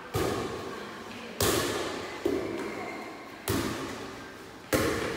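An air volleyball being struck back and forth in a rally: five sharp slaps about a second apart, each ringing on in the echoing hall.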